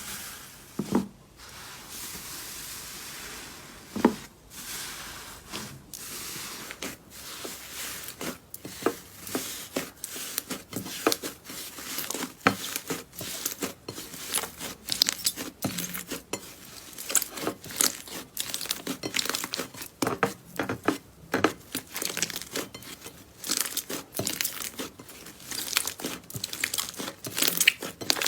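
Slime being squished and pulled apart by hand, making a dense run of small sticky pops and crackles. There is a softer stretching hiss with two sharper snaps for the first few seconds, and the popping gets busier after that.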